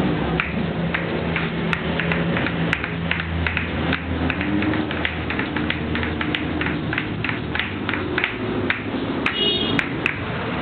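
Asalato (patchika), two small shells joined by a cord, clacking together in a fast, even rhythm of about four sharp clicks a second with lighter clicks between. The seeds inside rattle along with the clicks.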